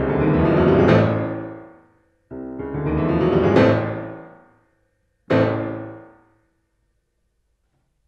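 Boston grand piano playing the closing bars of a piece. A loud passage dies away about two seconds in, and a second phrase builds to a loud peak. A single loud chord is struck a little past five seconds in and rings out.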